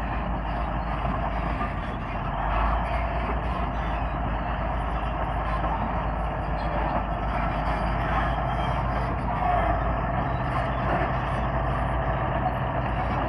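Komatsu D155A crawler bulldozer working, its diesel engine running steadily with a low rumble.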